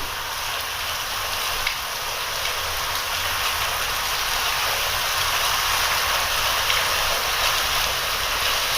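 Steady rain falling, an even hiss with no change in strength.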